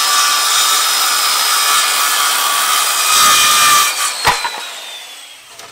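Corded Craftsman circular saw crosscutting a wooden board, a loud steady cutting noise with a high whine running under it. About four seconds in the cut ends, there is a sharp knock, and the motor winds down with a falling whine that fades away.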